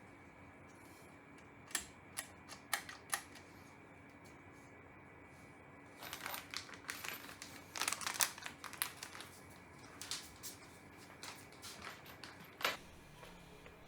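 Light clicks and taps of small parts and tools being handled during assembly. There are a few single clicks about two seconds in, then a busier rattle of clicks from about six to nine seconds, and a last sharp click near the end, over a faint steady hum.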